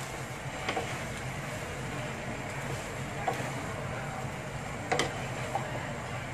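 Noodles and vegetables being stir-fried in a wok with a wooden spatula: a steady sizzling hiss over a low hum, with a few sharp knocks of the spatula against the pan, the loudest about five seconds in.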